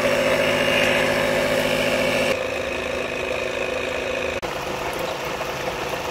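Air compressor running steadily, with a hiss of spraying water from a handheld shower head that stops about two seconds in, when the shower head's valve is flipped shut.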